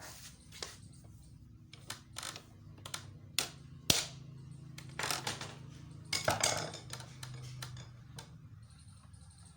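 Irregular metal taps, knocks and short scrapes as a tool set in the hole of a sewing machine handwheel's release knob is struck to turn it anticlockwise and loosen it. A sharp knock about four seconds in is the loudest.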